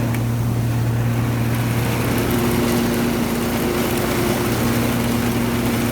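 Riding lawn mower running steadily with its engine under load while mowing up leaves into the grass catcher and leaf bag, with a higher engine tone that comes and goes.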